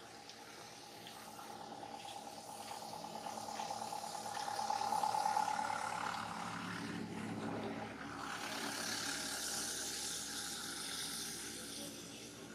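A motor vehicle's engine passing by, a steady hum that swells to its loudest about five seconds in and then fades under a hiss.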